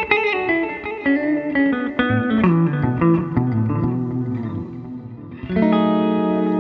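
Electric guitar played through an EarthQuaker Devices Dispatch Master delay and reverb pedal: a run of picked single notes that ring into one another, then a chord struck about five and a half seconds in and left ringing.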